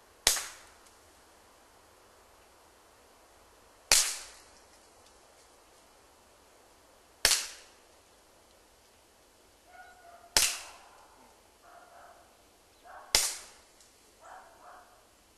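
Five suppressed shots from a Walther P22 .22 LR pistol with a Gemtech Outback II suppressor, firing subsonic ammunition. The shots are evenly paced about three to three and a half seconds apart, each a sharp crack with a brief fading tail.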